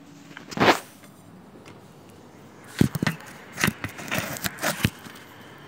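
A brief rustle about half a second in, then a run of light, irregular clicks and knocks near the middle.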